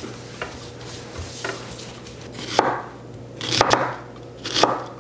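Chef's knife slicing a whole onion into rings on a wooden cutting board, the blade knocking the board about once a second, five cuts in all.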